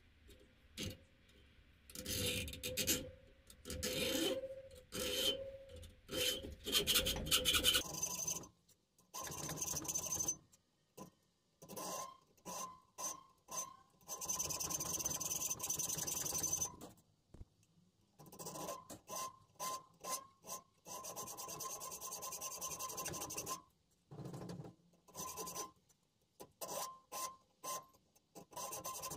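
Back-and-forth rasping strokes of a hand tool cutting notches into a metal bar, in runs of several strokes with short pauses between. From about eight seconds in, the strokes carry a steady ringing tone from the metal.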